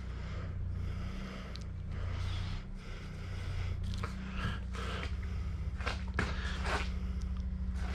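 Dry fiberglass cloth rustling and crinkling as gloved hands lay it and smooth it over a fender mold, with a few sharper rustles in the second half. A steady low hum runs underneath.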